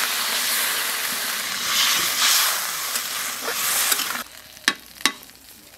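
Hot oil and masala in a kadai sizzling loudly as water is poured over fried cauliflower and potatoes, then stirred with a spatula. The sizzling cuts off suddenly about four seconds in, followed by two sharp clicks.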